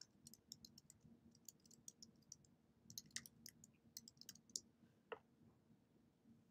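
Faint, irregular clicking of keys on a computer keyboard, with a slightly louder click about five seconds in.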